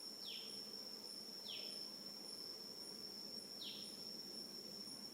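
Insects with a steady high drone, and a fainter pulsing above it at about two beats a second. Over them a short call slides downward in pitch three times.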